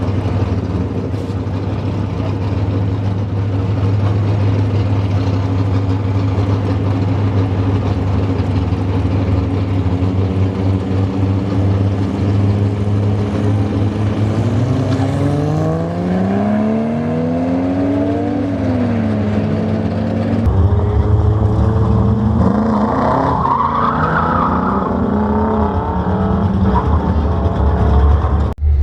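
Car engine running steadily at first, then revving in rising and falling sweeps from about halfway through. The sound changes abruptly twice, as at cuts between shots.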